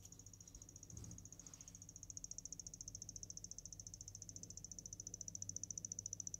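Corsair ML120 Pro 120 mm magnetic-levitation PC fan whistling, a high-pitched tone pulsing rapidly and growing louder. The whistle is the sign of a faulty fan.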